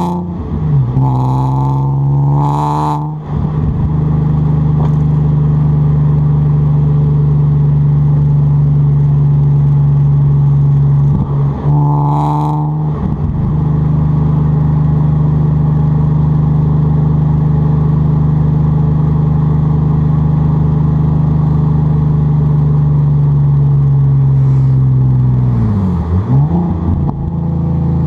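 Audi A4 3.0 quattro's V6 heard at the tailpipe through a custom exhaust while driving. It revs up and drops back a few times in the first three seconds and again about twelve seconds in, then settles into a steady cruising drone, with the pitch dipping and climbing again near the end.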